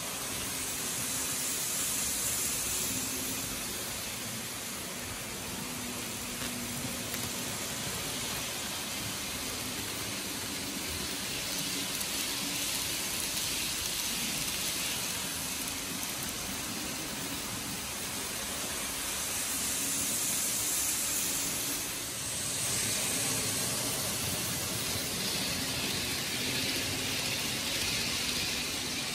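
N gauge model trains running on the layout: a steady hiss of wheels rolling on the rails with a faint motor hum, swelling slightly as a train passes close.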